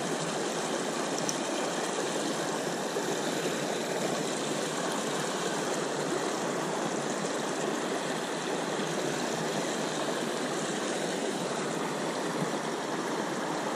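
Shallow river rapids rushing over rocks, a steady, even wash of water.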